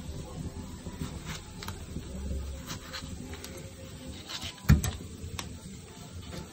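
A tomato being cut by hand with a knife over a plastic blender jar, pieces dropping into the jar: soft scattered clicks and light knocks, with one louder thump about four and a half seconds in.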